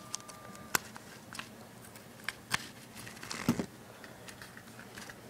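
Scattered light clicks and handling noises from scissors and duct tape, the scissors being handled and set down on a rubber mat, with a short cluster of handling noise a little past the middle.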